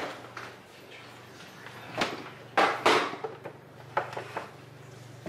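Half a dozen knocks and clunks of kitchen handling, such as a drawer or door shutting and things being set down, over a low steady hum. The loudest two come close together midway through.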